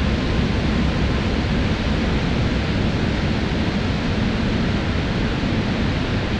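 Large waterfall's whitewater rushing steadily, an unbroken wash of falling water with a deep low rumble.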